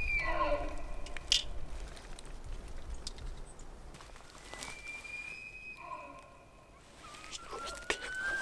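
Bull elk bugling. A call that has just peaked drops into low grunting notes at the start. About halfway a second high, steady whistle breaks down into a lower grunt, and a new rising whistle begins near the end.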